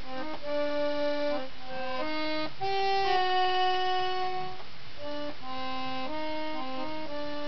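Instrumental music: a simple melody of held, reedy notes over a lower line of notes, one note changing to the next without a beat.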